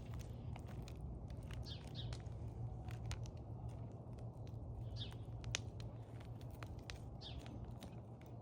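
Knife cutting cooked steak on a plate: light, irregular clicks and taps of the blade. A bird chirps briefly about every two seconds over a low steady hum.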